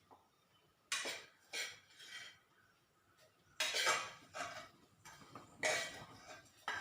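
Metal kitchen utensils and dishes clinking and clattering as they are handled, in several separate short bursts.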